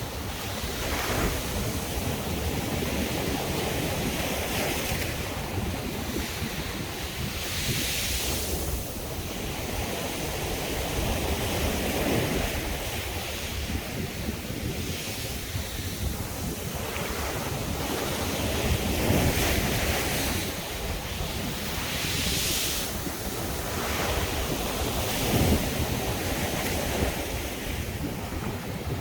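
Sea surf breaking and washing up a beach in a continuous rush, swelling with each wave every few seconds, with wind buffeting the microphone.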